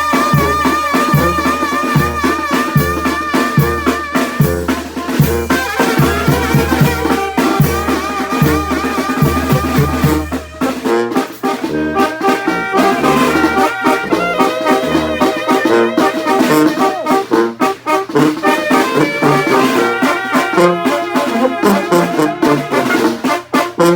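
A Oaxacan brass band (banda) playing: trumpets and trombones over drums. A regular low bass beat runs through the first ten seconds or so, then stops, and the brass carries on over sharper drum hits.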